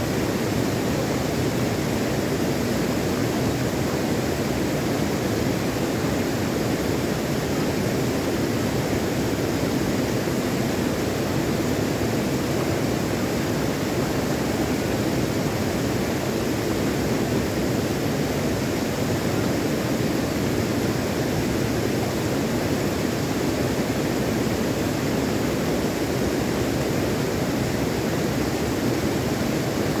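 Shallow stream rushing steadily over rocks and gravel, an even, unbroken water noise.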